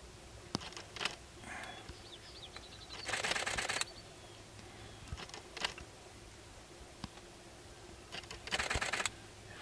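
Male sharp-tailed grouse dancing on a lek: two rapid rattling bursts of foot-stamping and rattling tail feathers, each under a second long, about three seconds in and near the end. Scattered short clicks and faint high chirps come between them.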